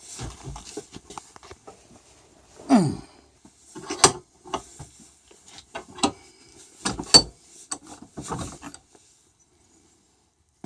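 Sharp metal clicks and knocks, with a falling creak about three seconds in, as an aluminium-soldered test piece is forced and crushed in the shop. The sounds stop for the last second or so.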